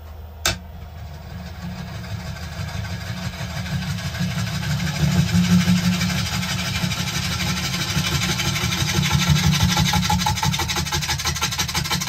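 Wood lathe running with a gouge cutting the face of a spinning ash platter: a steady motor hum under the rough hiss of shavings peeling off, the cutting growing louder a few seconds in. A single sharp click about half a second in.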